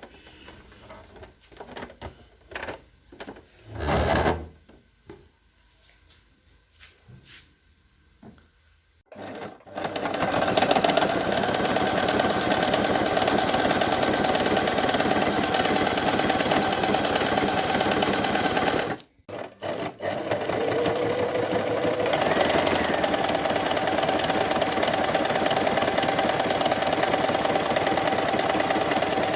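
Brother portable sewing machine, freshly oiled and greased after repair, running steadily at speed. A few small handling clicks and one thud come first; after about nine seconds the machine starts, stops briefly around the middle, and runs again.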